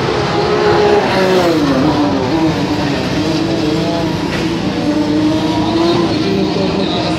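Several rallycross race cars racing past at high revs. Their engine note falls about two seconds in, then holds steady.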